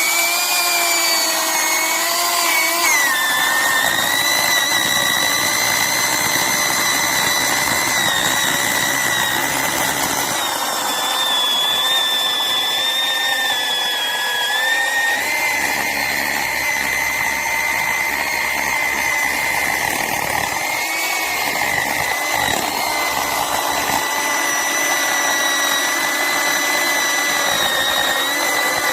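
Chainsaw running at high revs, cutting through firewood. Its steady whine sags slightly in pitch midway as the chain loads in the wood, then picks up again.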